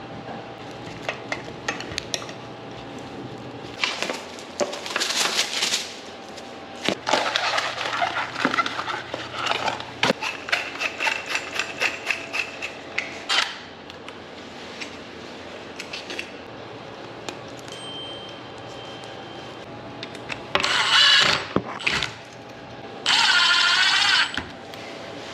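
Irregular clicks, clinks and rustling from hands handling hardware and tools, with two short, louder bursts near the end.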